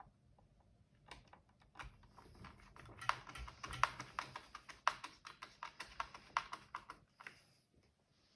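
Quick, irregular plastic clicks and taps as parts of a robot vacuum are handled and fitted back onto its body. They start about a second in, come thickest in the middle and stop shortly before the end.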